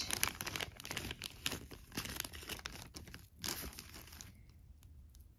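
Small clear plastic bag crinkling with little crackles as it is handled and the bracelet is taken out of it; the crinkling dies away about four seconds in.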